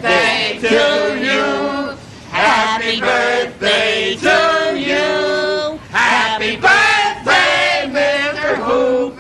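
A group of men's and women's voices singing together in held notes, phrase by phrase.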